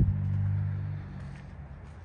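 Low, steady hum of a motor vehicle's engine that fades away about a second in, with a short knock at the very start.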